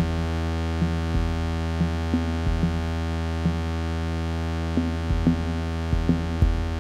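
Electronic music: a steady, deep synthesizer drone with short low pulses at uneven intervals over it.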